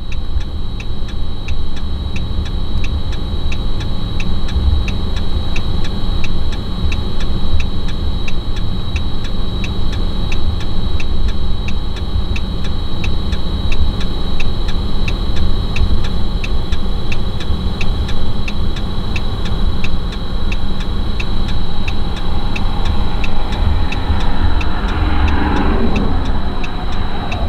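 Vehicle's engine running steadily, heard from inside the cab as a deep rumble, with a steady high-pitched tone and an even ticking about twice a second.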